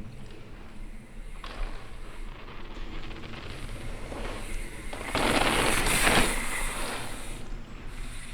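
Downhill mountain bike being ridden over a dirt trail: tyres rolling and scraping over the ground with the rear hub's freewheel ratchet clicking. About five seconds in, a louder rush of tyre and wind noise lasts roughly two seconds.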